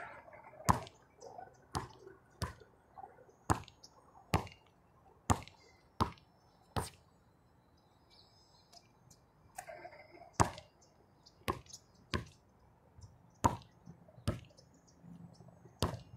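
A basketball bouncing on an outdoor hard court: about a dozen sharp single thuds, roughly a second apart, stopping for a few seconds midway and then starting again.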